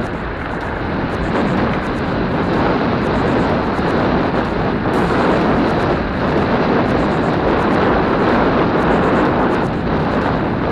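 Steady rushing wind and tyre noise from a mountain bike rolling along a dirt path, picked up by a helmet-mounted action camera's microphone.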